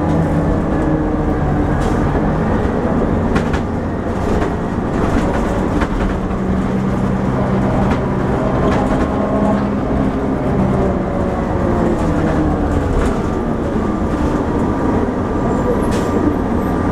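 Cabin sound of a 2000 New Flyer D60LF articulated diesel bus: the engine and drivetrain run steadily, the engine note slowly rising and falling, over road noise with scattered rattles and clicks from the interior.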